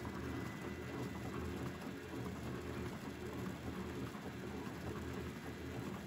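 Ilapak Carrera 500 horizontal flow-wrapping machine running steadily at 100 packs a minute: a continuous fast mechanical clatter over a low hum, with a faint steady high whine.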